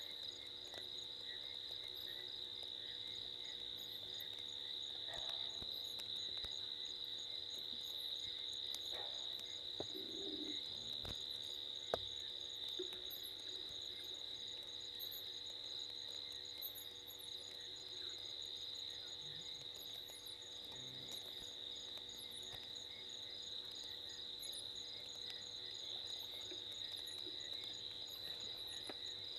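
Steady high-pitched night chorus of crickets, with frogs calling faintly in the background. A single sharp click sounds about twelve seconds in.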